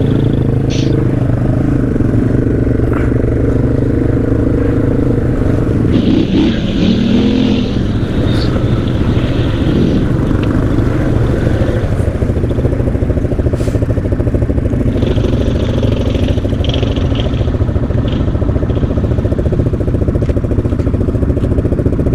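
ATV engine running steadily under the rider, its note wavering briefly about a third of the way in as the throttle changes.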